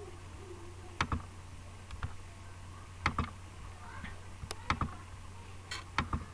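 Computer mouse clicking: sharp single and double clicks every second or so, over a steady low electrical hum.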